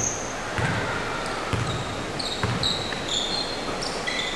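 Basketball being dribbled on a hardwood gym floor, thumping about once a second, with the short high squeaks of sneakers on the court in an echoing sports hall.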